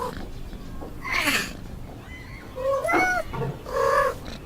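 A cat meowing, a few short calls in a row.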